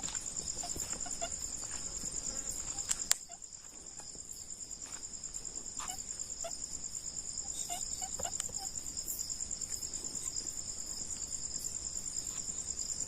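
Crickets chirping in a steady, fast-pulsing high chorus. A single sharp click about three seconds in.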